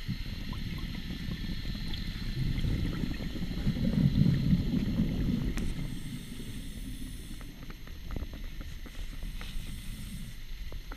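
Scuba diver's exhaled bubbles rumbling from the regulator, heard muffled through an underwater camera housing: one exhale swells a few seconds in and fades out after about six seconds, with faint scattered clicks over a steady underwater hiss.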